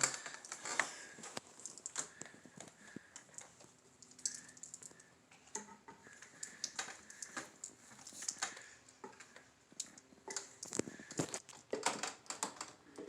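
Irregular light clicks and taps of small plastic toys being handled on a table, a little busier near the end.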